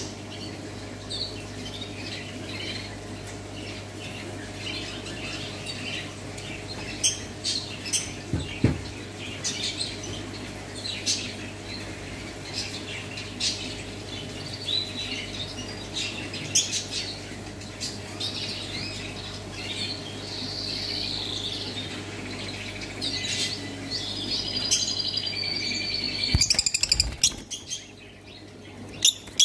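Short bird chirps and squawks scattered throughout over a steady low hum, then a brief flurry of wingbeats about 26 seconds in as a Fischer's lovebird flies to another perch.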